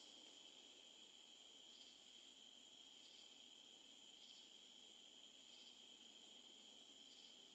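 Faint, steady high-pitched insect chorus, like crickets, with a soft pulse repeating about every second and a half.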